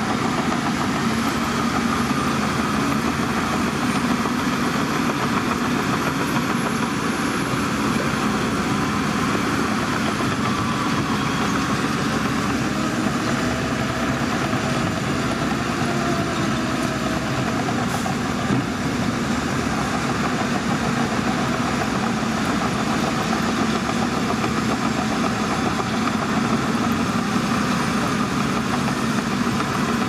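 Diesel engines of bulldozers and dump trucks running together at an earthmoving site, a steady mechanical drone.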